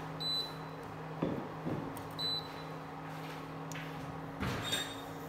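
A stainless steel pot set down on an induction cooktop's glass top with a couple of soft knocks, and shifted again with a brief clatter near the end. A running induction cooktop hums steadily underneath and gives two short high beeps about two seconds apart.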